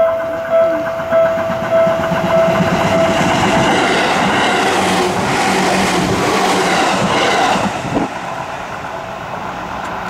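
Level-crossing warning bell dinging about every 0.6 seconds as a Seibu Tamagawa Line electric commuter train in red-and-beige livery runs past over the crossing. The train noise swells and drowns the bell, then drops off sharply about eight seconds in as the last car clears.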